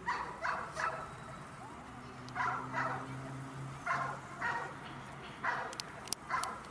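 A dog barking: nine short barks in twos and threes, each group a second or more apart.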